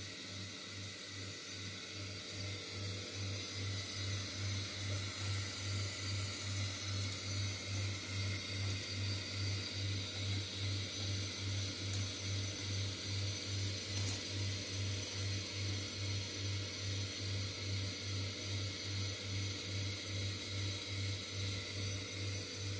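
Thin stream of tap water running into a sink, a steady hiss, under a low hum that pulses about twice a second.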